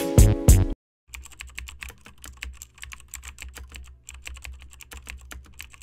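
Intro music cuts off under a second in; after a short gap, rapid computer-keyboard typing follows: many quick, uneven key clicks over a faint low hum.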